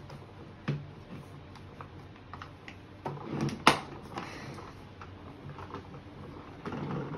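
Hard plastic parts of a Giganotosaurus toy clicking and knocking as they are handled and fitted together, with one sharp, loud click about three and a half seconds in and some rubbing near the end.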